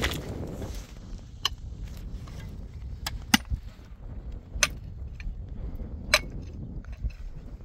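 Pickaxe striking stony, rocky soil: sharp metal-on-stone impacts about every one and a half seconds. In the first second, a shovel blade scraping through gravel.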